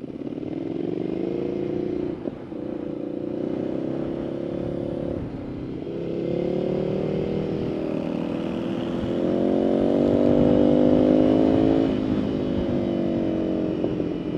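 Ducati Scrambler's 800cc V-twin accelerating up through the gears. The engine note climbs in pitch, then drops sharply at each of about four upshifts, over steady wind rush.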